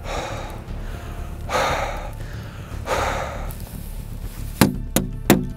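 A man blowing hard on an iced-over pistol's frozen trigger to thaw it: two long, forceful breaths. Then several sharp knocks about a second apart as the frozen pistol is smacked and worked by hand.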